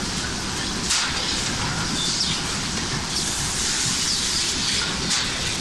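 Steady running noise of an automatic gas-tank welding production line: continuous machinery rumble and hiss, with a couple of brief high squeals about a second in and near the end.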